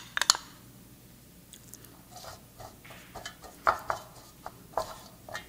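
A spoon clinks twice against a small glass bowl at the start. Then a silicone pastry brush dips into the bowl and dabs an oil-and-starch mixture into a metal madeleine pan, making soft, irregular taps and clicks.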